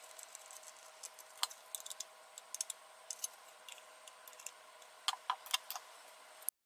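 Faint, scattered small clicks and ticks as rubber-grommeted mounting screws are fitted into the metal case of a Transcend SSD220S 2.5-inch SSD with a screwdriver, the handling sped up to four times normal speed, over a faint steady hum. The sound cuts off suddenly near the end.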